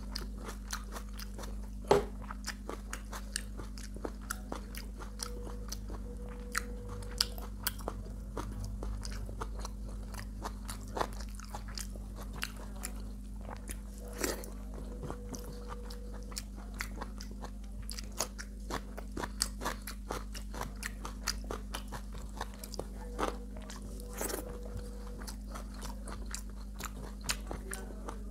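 Close-up chewing and crunching of food, with many small irregular mouth clicks and smacks, over a steady low hum.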